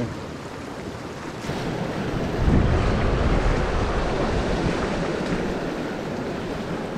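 Sea surf washing in, with wind buffeting the microphone; the wash swells louder about two and a half seconds in and slowly eases off.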